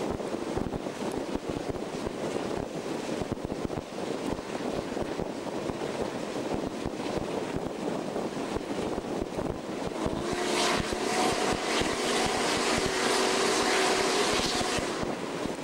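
Norfolk & Western Class J No. 611 steam locomotive running at speed, heard from the cab window as a steady rumble, rattle and wind rush. About ten seconds in, the locomotive's whistle sounds for about five seconds as a steady chord of several tones, with a brighter hiss over it.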